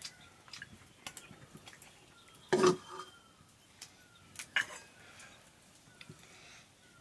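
Metal spoons clinking against aluminium bowls and a ladle scraping in a wok as noodles are eaten and served: scattered light clinks, with one louder clatter about two and a half seconds in.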